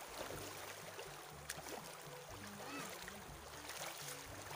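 Shallow river water splashing and rushing as several people wade and lunge through it, a faint, even wash of water noise.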